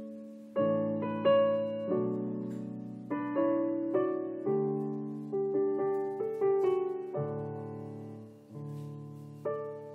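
Background piano music: a gentle melody of single notes and chords, each struck and left to fade, about one or two notes a second.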